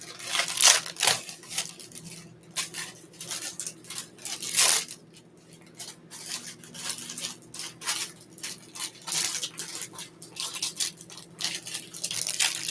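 Rapid, irregular scraping and rustling of kitchen handling during food preparation, with louder swishes about half a second in and about four and a half seconds in.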